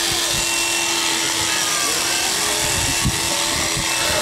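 Electric sheep shears running steadily with a constant hum while a sheep is clipped.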